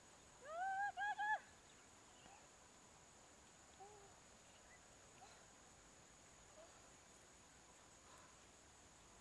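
Faint, steady high-pitched insect drone. About half a second in comes a short, louder call of three quick rising notes.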